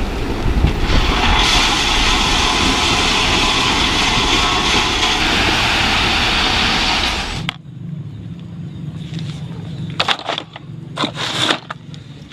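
Toy dump truck being played with: a steady rolling, scraping noise for about seven seconds that stops suddenly, then a few clicks and knocks as the toy is handled.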